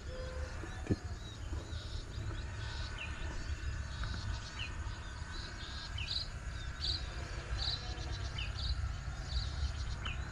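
Insects chirping in short, regularly repeating pulses over rice paddies, with a low, uneven rumble underneath and a single knock about a second in.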